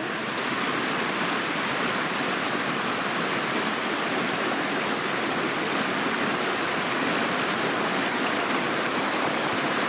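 A shallow mountain creek babbling over rocks: a steady rushing and burbling of water.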